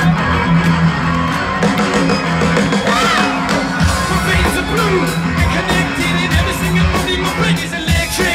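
Live rock band playing loud amplified music, with sustained bass notes and a steady drum beat, heard from within the audience, with scattered crowd shouts and whoops mixed in.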